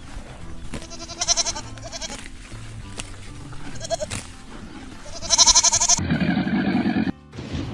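Bleating livestock: a few short, quavering bleats over background music, the loudest and longest near the end. After it comes a lower, deeper sound lasting about a second that cuts off suddenly.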